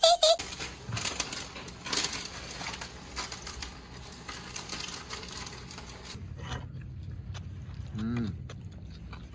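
Clicking and crackling of instant noodles being cooked and stirred in a frying pan. Near the end comes a man's short appreciative 'mmm' hum, rising and falling in pitch.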